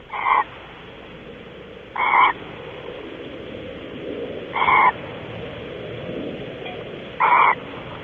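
Barn owl giving short hissing calls, four times about every two to two and a half seconds, over a steady hiss from the camera feed.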